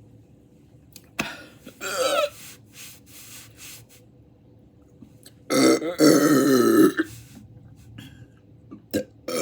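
A man hiccups and burps. A sudden short hiccup comes a little over a second in, with a brief voiced catch after it. A long, loud burp follows around the middle, and another burp begins near the end.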